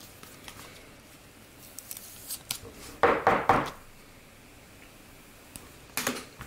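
A sleeved trading card being slid into a rigid plastic top loader: a short run of three or so plastic scrapes about three seconds in, with a few small plastic clicks before it and another brief scrape near the end.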